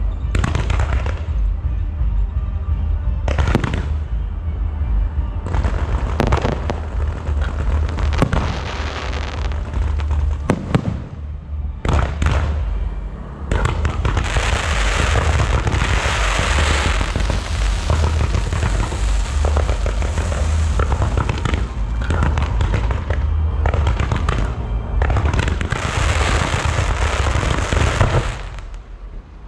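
Fireworks going off: repeated sharp bangs over a heavy low rumble, thickening about halfway into a dense, continuous crackling barrage that drops off sharply about a second before the end.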